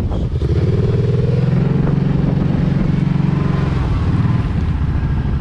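Kawasaki Brute Force 750 ATV's V-twin engine running under throttle as the quad drives through shallow lake water. The engine gets louder about half a second in, holds a strong steady note, then eases off near the end.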